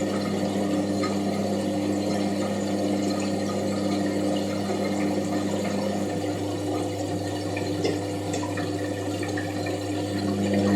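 Washing machine running: a steady hum with water sounds. One of its tones drops out about six seconds in and comes back near the end.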